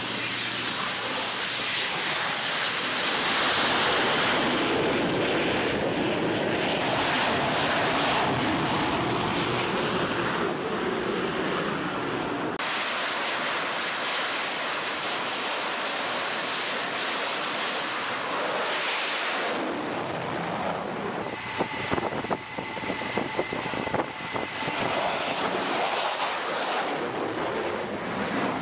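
Twin jet engines of F/A-18F Super Hornets running loud on a carrier flight deck, a high whine sliding up and down in pitch over the roar. The sound changes abruptly about twelve seconds in and again near twenty seconds.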